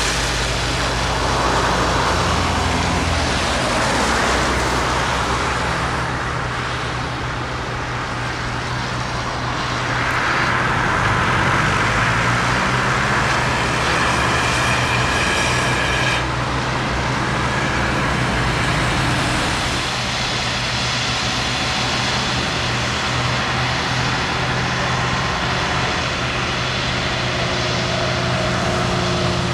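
Roadside traffic: cars and trucks swishing past one after another, each swelling and fading, over a steady low engine hum.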